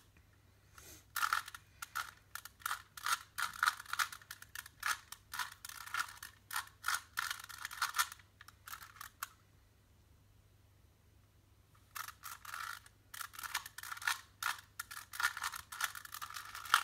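A 3x3 Rubik's cube being turned quickly by hand: its plastic layers click and clack in rapid runs. The clicking stops for about three seconds in the middle, then starts again.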